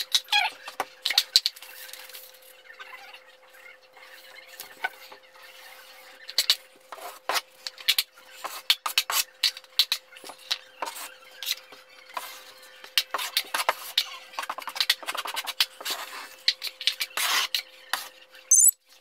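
Drywall taping knife scraping and clicking against a mud pan and across the wall as joint compound is loaded and spread, sped up so the strokes come as a rapid run of clicks and scrapes. A faint steady hum runs underneath.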